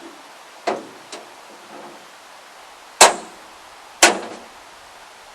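Sharp knocks: one under a second in and a smaller one just after, then the two loudest about three and four seconds in, each with a brief ring.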